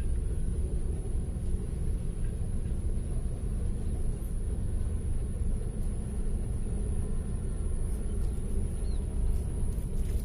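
Steady low outdoor rumble that wavers slightly in level, with a thin steady high-pitched whine above it.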